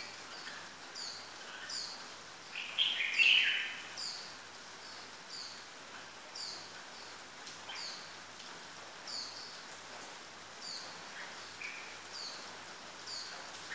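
Red-whiskered bulbul singing: one loud warbled phrase about three seconds in, with faint short high chirps repeating about every second.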